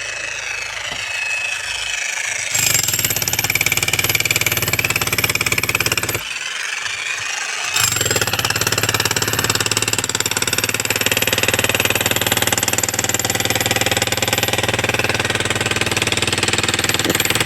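Electric chipping hammer (demolition breaker) chiselling into brick and concrete: the motor runs for a couple of seconds, then a fast, continuous hammering starts, breaks off briefly around the middle, and resumes until the end.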